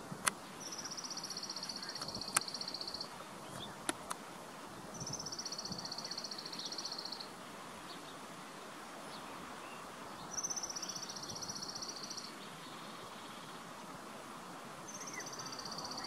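Arabian woodpecker calling: a high, rapid trill about two seconds long, falling slightly in pitch, given four times at roughly five-second intervals. A few sharp clicks come in the first few seconds.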